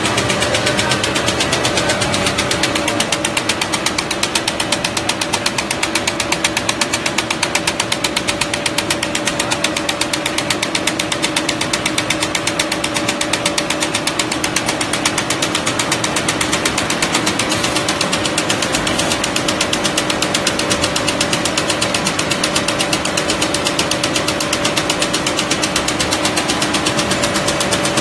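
A4 paper sheeting and ream-packing machine running, with a fast, even clatter over a steady hum.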